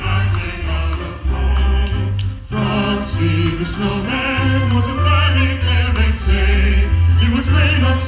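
A choir singing, with strong low bass notes underneath and a brief break about two and a half seconds in.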